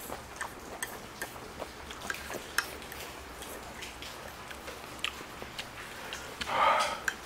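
Chopsticks clicking and scraping against a plate while instant noodles are eaten, in many small separate taps. Near the end comes one short, louder breathy sound from the eater's open mouth.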